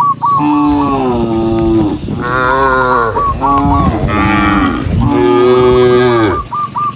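Cows mooing, about four long moos in a row, some overlapping and falling in pitch at the end. Short high chirps repeat in quick runs between them.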